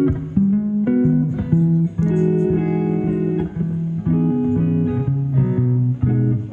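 Background music: a plucked guitar melody, notes changing about twice a second.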